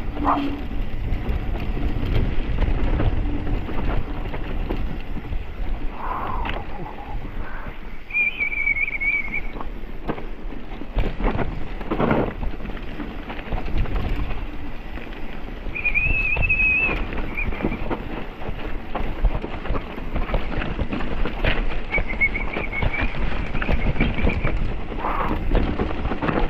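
Wind rumbling on the microphone of a mountain bike's action camera while riding, with scattered rattling knocks from the bike over rough ground. Three brief high steady tones, each about a second long, come through about a third of the way in, past the middle and near the end.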